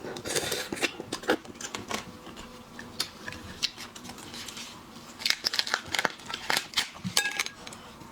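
Seafood shell being cut and cracked open: a run of sharp clicks and crackles, thickest between about five and seven seconds in.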